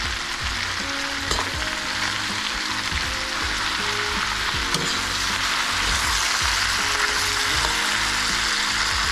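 Cabbage and kielbasa sizzling in bacon grease in an electric skillet as they cook down, stirred and turned with a fork, with a couple of light clicks of the fork against the pan. The sizzle grows a little louder toward the end.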